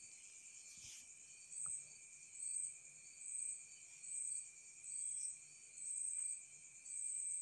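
High-pitched insect chirping, repeating about once a second over a faint steady high hum. Two faint clicks near the start come from metal parts being fitted onto a sewing machine head.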